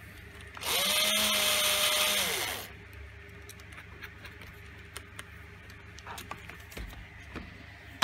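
Cordless drill motor run once for about two seconds while its keyless chuck is held, to open the chuck for a bit change. It spins up to a steady whine and then winds down. Faint clicks of a drill bit being fitted into the chuck follow.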